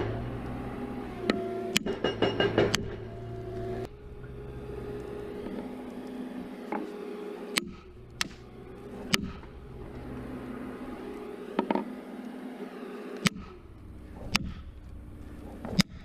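Engine idling steadily, with sharp knocks over it: a quick run of them in the first few seconds, then single knocks every second or two.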